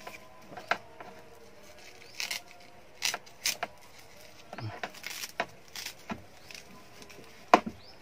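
Seat belt fittings handled against a car's door pillar: scattered clicks and knocks of plastic and the metal latch plate as the belt and its padded cover are positioned, the sharpest click near the end.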